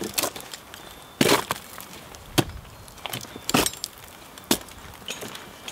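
Tree-climbing spurs jabbing into the bark of a tree trunk as a climber steps up it: about seven sharp wooden knocks, roughly a second apart and irregular.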